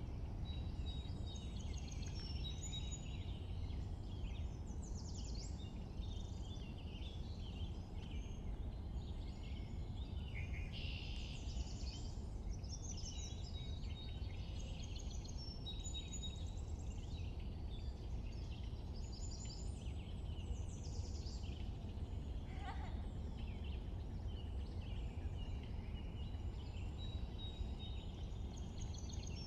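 Birds chirping and singing in woodland, many short calls and trills throughout, busiest in the middle, over a steady low rumble.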